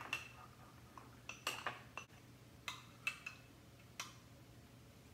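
A metal spoon clinking against a small glass, in about eight light, irregular taps, as flour and water are stirred into a slurry for thickening gravy.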